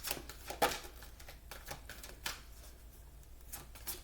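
Oracle cards being shuffled and handled, a run of quick soft snaps and taps that thins out past the middle and picks up again near the end.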